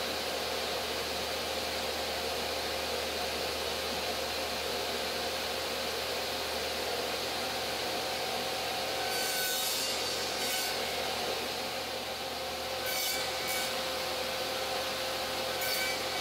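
Small table saw running steadily as a crosscut sled carries wood rails over the blade, cutting tenon cheeks. The blade bites into the wood in short, hissier passes about nine to eleven seconds in, around thirteen seconds, and again near the end.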